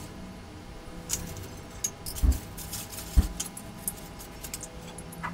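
Handling of PVC pipe parts and a plastic bag: scattered light plastic clicks and rattles, with two dull knocks just under a second apart near the middle as the pipe frame meets the tiled floor.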